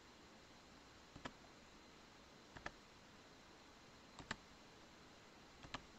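Computer mouse button clicking four times, about one and a half seconds apart, each click a quick pair of ticks, over faint room hiss.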